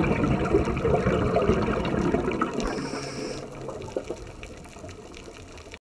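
Scuba diver's exhaled bubbles gurgling underwater past the camera, loud for the first few seconds and then easing off, with a brief high hiss about three seconds in.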